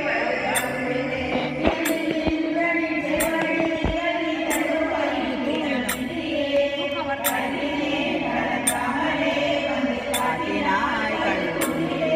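A group of voices singing Tamil devotional verses together in a steady chant, with a faint high tick about every second and a half.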